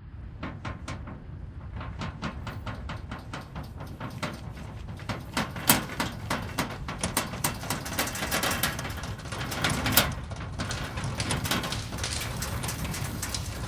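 Earthquake rumble: a continuous low rumble under dense, rapid rattling and crackling, like shaking ground and debris. The rattling builds up, with two sharp louder cracks about a third of the way through and again two-thirds through.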